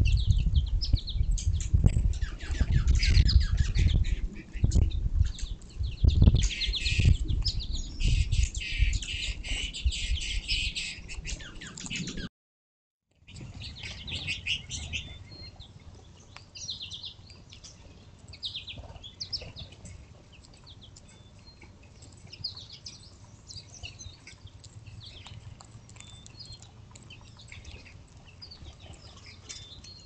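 Small birds chirping and singing in many short, quick notes. For the first twelve seconds there are loud low thumps and rustling close to the microphone. The sound cuts out for about a second, then the chirping goes on more quietly.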